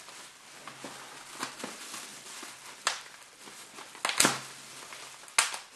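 Plastic packing wrap rustling and crinkling as it is unwrapped by hand, with a few sharp crackles, the loudest about four seconds in and again near the end.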